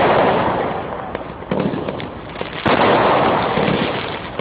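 Fireworks going off: a loud bang fading at the start, a smaller bang about a second and a half in, and another loud bang near three seconds in, each dying away over a second or so.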